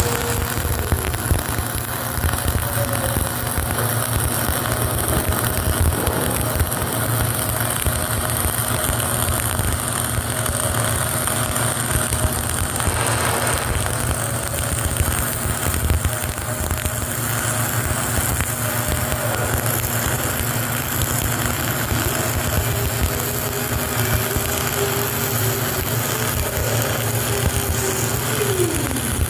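Flux-cored arc welding: a steady crackling, sizzling arc that runs without a break, with a steady low hum underneath.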